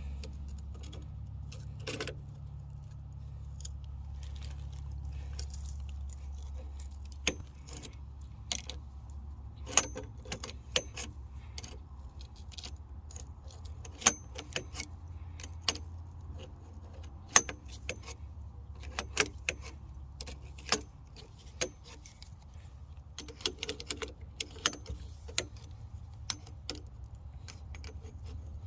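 Wrench working on an outdoor faucet's fittings: irregular sharp metallic clicks and clinks over a steady low hum.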